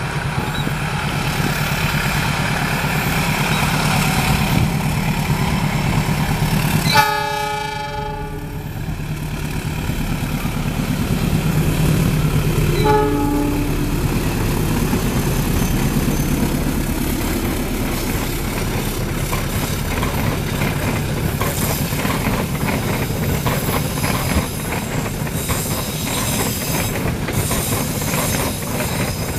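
A CC206 diesel-electric locomotive hauling a passenger train runs past with a steady low engine rumble. It sounds its horn twice, a long blast about 7 seconds in and a shorter one near 13 seconds. The coaches then clatter over the rail joints.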